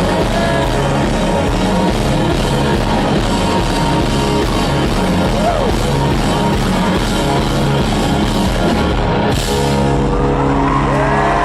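Live rock band playing loud with drums and guitars, heard through a concert crowd recording; about nine seconds in a crash marks the band settling onto a long held closing chord.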